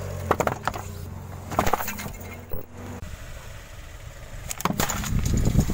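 Car tyre rolling onto aluminium drink cans and crushing them, with several sharp cracks and crunches, over the low hum of the car's engine.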